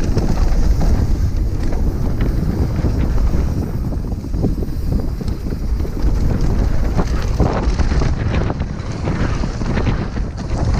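Wind buffeting a helmet-mounted GoPro Hero 5 Black during a fast downhill mountain-bike descent, mixed with tyre noise on a dirt trail and frequent knocks and rattles as the bike hits bumps.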